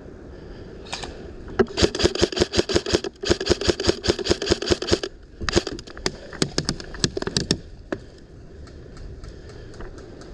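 Airsoft gun firing in rapid full-auto bursts of about ten shots a second. A burst of about three seconds has a brief break in it, then shorter bursts follow, and a last single shot near eight seconds in. Fainter scattered shots come afterwards.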